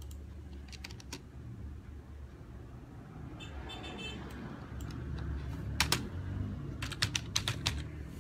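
Scattered computer keyboard clicks, a couple about a second in and a quick run of several near the end, over a low steady rumble.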